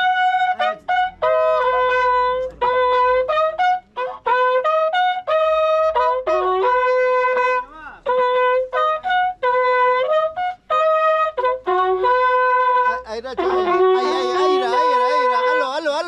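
Wakrapuku, Andean spiral horn trumpets made of joined cow-horn segments, playing a melody of short held notes that leap between a few pitches. Near the end a second horn joins in with wavering, wobbling notes over the first.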